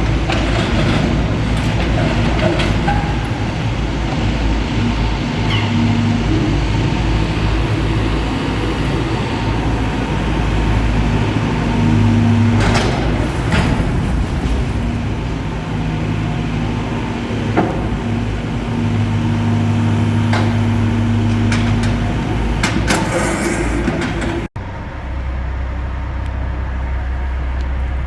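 Caterpillar 420 backhoe loader's diesel engine running and changing pitch as it works, with several sharp clanks and knocks. About 24 seconds in it cuts to a steadier low drone.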